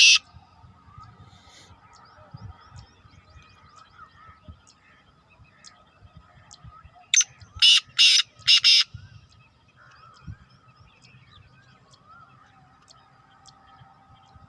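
Black francolin (kala teetar) calling: one phrase of about five loud, harsh, grating notes about halfway through, with the last note of an earlier phrase right at the start. Faint chirps of other small birds can be heard between the calls.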